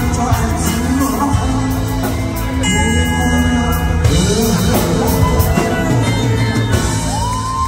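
A man singing into a microphone over a band with drum kit and keyboard, amplified through the hall's sound system.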